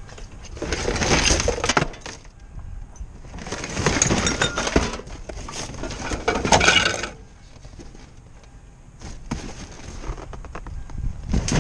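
Junk being shifted around in a steel dumpster: items clatter and clink against each other in two long spells of rummaging, the second about four seconds long, then the noise drops off.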